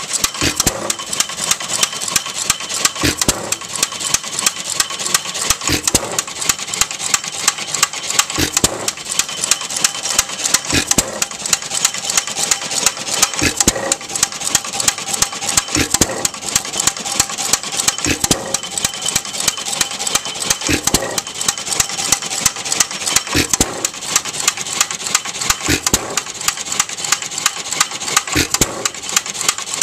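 1.5 HP headless Fairbanks hit-and-miss gas engine running, firing about once every two and a half seconds and coasting on its flywheels between firings. Between the firings its valve gear and moving parts keep up a rapid clicking.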